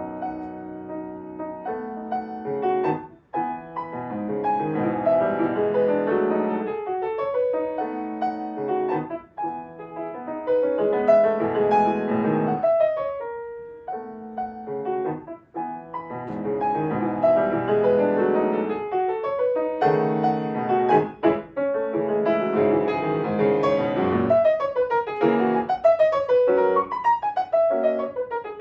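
Solo acoustic piano playing a classical piece in quick runs of notes, with fast falling passages near the end.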